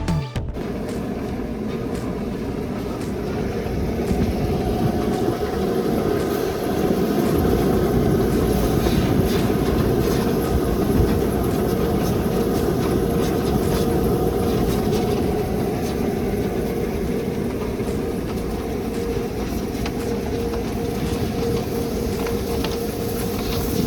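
Dryer-vent cleaning equipment running steadily in a metal vent duct: a continuous rumble and rattle with a steady hum.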